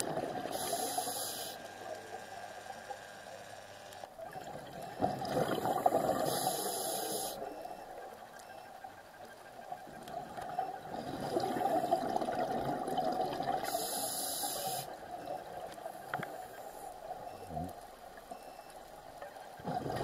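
Scuba diver's regulator breathing underwater: a hissing inhalation through the regulator, then a gurgling rush of exhaled bubbles, repeated about three times.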